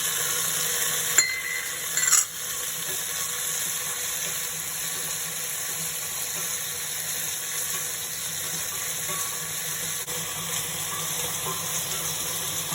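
Chopped cherry tomatoes and garlic sizzling in hot olive oil in a frying pan, a steady hiss. A sharp knock about a second in and a short clatter a moment later, as of a utensil against the pan.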